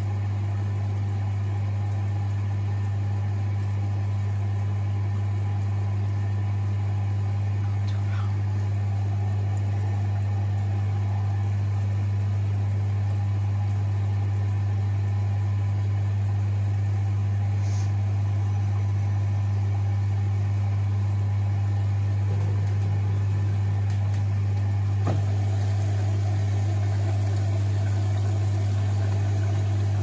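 Beko ECOWMB81445LW washing machine filling with water: a steady low hum over the sound of running water, with the drum at rest. There are a couple of faint clicks near the end.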